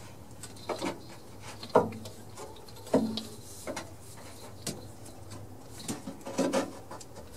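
Scattered light clicks and knocks of hands handling a distributor and engine-bay wiring and hoses, at irregular intervals, the sharpest about two seconds in.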